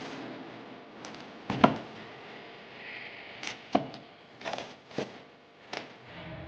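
A series of about six sharp clicks and knocks of hard plastic parts, spread over a few seconds, as the armrest console is handled and fitted.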